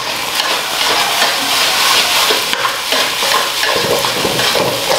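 Fried rice sizzling in a wok, with a spatula stirring and scraping it in repeated strokes.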